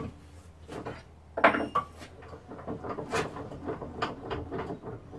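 Handsaw cutting a pallet-wood board to length, a run of short, uneven strokes from about halfway in, after a knock and a clatter as the board is set up.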